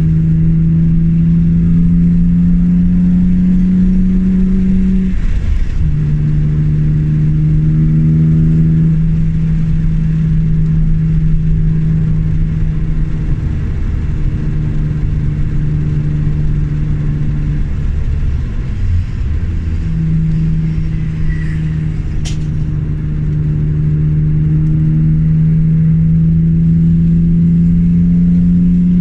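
BMW E36 M3's straight-six engine pulling at a fairly steady pitch. Its note breaks and drops about five seconds in, which fits a gear change, and falls away again around eighteen to twenty seconds before climbing slowly toward the end. A single sharp click comes about 22 seconds in.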